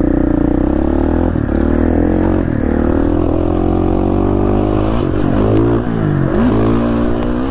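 Dirt bike engine running under way, fairly steady at first, then the revs rise and fall several times in the second half as the throttle is worked.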